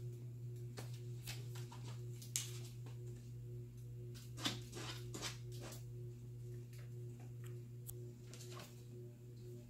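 A ferret scrambling among plush toys and clutter on a desk: scattered rustles and light knocks, the sharpest about two and a half and four and a half seconds in, over a steady low hum.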